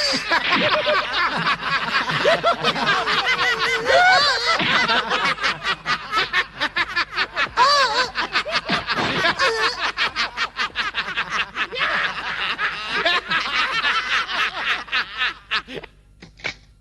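A group of men laughing mockingly together in a dubbed cartoon, many voices overlapping in quick, rhythmic ha-ha-ha that dies away near the end.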